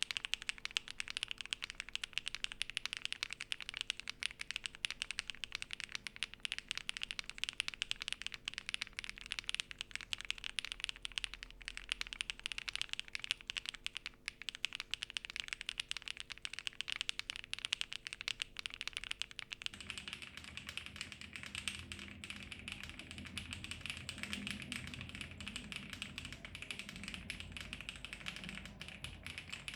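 Continuous fast typing on a MonsGeek M1 V5 VIA mechanical keyboard with prelubed Akko Mirror switches, a PC plate, foams and Keyreative blank keycaps: a dense patter of key presses. About twenty seconds in, the same typing switches from a close Shure SM57 microphone to an iPhone's microphone, which sounds fuller and boomier.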